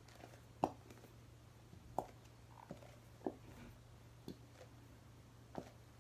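Five faint clicks and soft squishes, spaced a little over a second apart, as a plastic bottle of PVA glue is squeezed out for slime.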